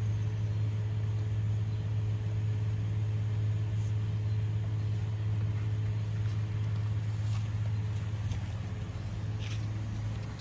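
A steady low machine hum, with a few faint short crunches of dogs chewing raw chicken in the second half.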